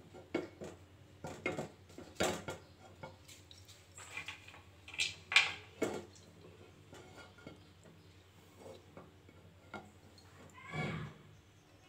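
Scattered light clinks and knocks of kitchen pots and utensils beside a kadai of ghee warming on the stove. A short call is heard near the end.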